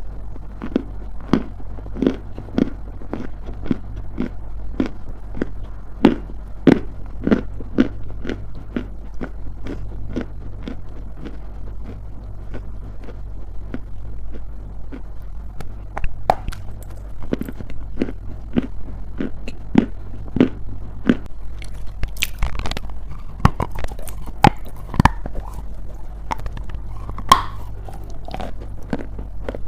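Person biting and chewing dry, crunchy grey clay: a run of sharp crunches, about two a second, with a denser, louder stretch of crackling crunches about two-thirds of the way through. A steady low hum runs underneath.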